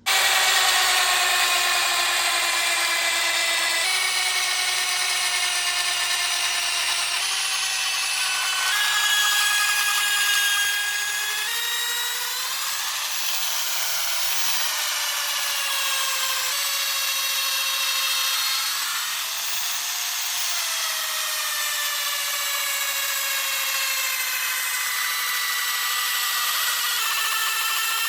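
Power drill boring into a tree stump: a loud, continuous motor whine whose pitch shifts several times in steps, then dips and rises slowly in the second half.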